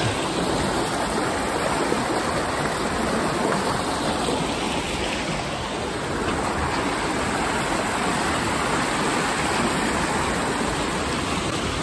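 Steady rushing of a fast-flowing, silty creek running over rocks.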